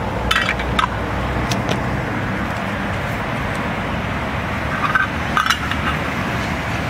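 A metal spoon clinking against an opened tin of cat food as the food is scooped out: a few sharp clinks near the start and again about five seconds in, over a steady low rumble of traffic.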